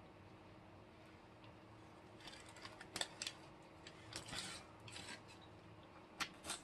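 Someone eating barbecue chicken: faint scattered clicks and crackly mouth and food-handling noises, bunched in the middle, with two sharp clicks near the end.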